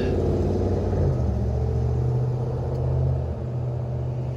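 A motor vehicle's engine running, a low steady hum whose pitch steps up about a second in, easing off a little past the three-second mark.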